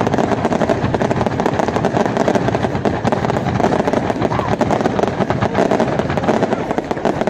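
Fireworks crackling: a fast, continuous run of many small overlapping cracks and pops from low white-gold crackle bursts.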